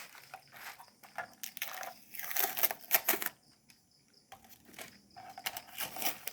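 Rustling and crinkling of packaging handled by hand, with small clicks and knocks, louder for about a second a couple of seconds in and again near the end.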